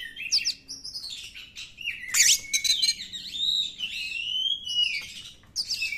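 Oriental magpie-robin (kacer) singing a varied song of clear whistled phrases, sweeping notes and quick chattering runs, with a brief pause about five and a half seconds in.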